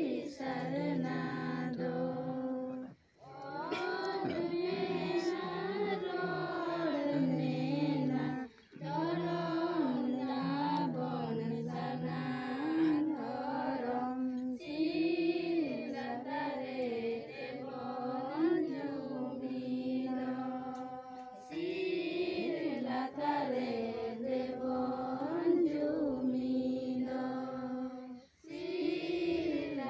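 A group of voices chanting a prayer song together in unison, in long sung phrases separated by short breaths of silence.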